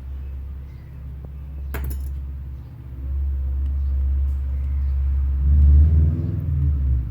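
Loud, steady low rumble that swells from about three seconds in and peaks near six seconds, with a single sharp click a little under two seconds in.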